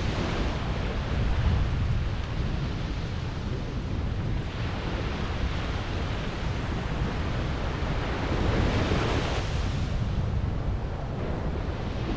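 Ocean surf washing onto the beach, with wind buffeting the microphone as a low rumble. The surf swells near the start and again about eight to nine seconds in.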